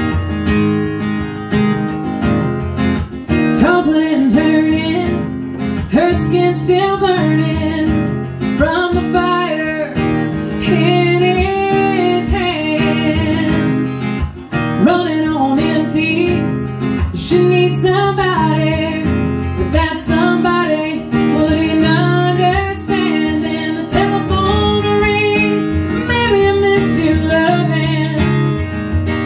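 Live acoustic country music: a strummed acoustic guitar, with a pitched melody line that bends up and down over the chords.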